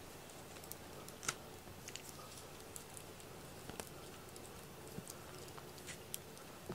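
Cat teaser toy flicked across the floor and a fleece blanket, making about ten faint, light taps and ticks at irregular intervals.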